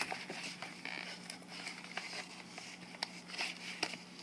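Scattered clicks and light rustling of a keyboard's retail box and packaging being opened and handled by hand.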